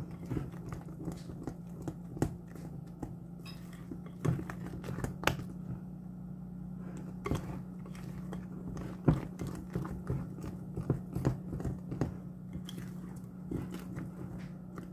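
Wire whisk beating thick pancake batter in a glass bowl, with irregular clicks and taps of the whisk against the bowl, over a steady low hum.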